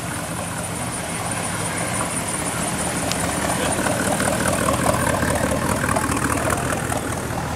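V8 engine of a large early-1970s American station wagon running at low speed as the car rolls slowly past, getting louder as it comes close about halfway through.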